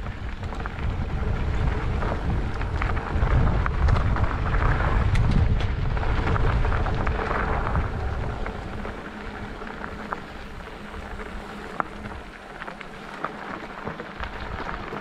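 Wind buffeting the microphone over the rattle and crunch of mountain-bike tyres on a rocky trail, heaviest in the first half, with scattered sharp clicks and knocks.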